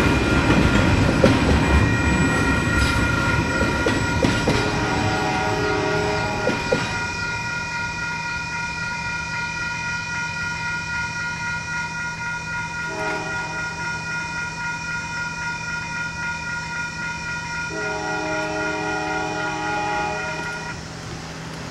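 Tail end of a freight train rumbling and clattering over a grade crossing for the first several seconds, then the crossing bell ringing steadily with a distant train horn sounding a long blast, a short one and another long one. The bell stops near the end.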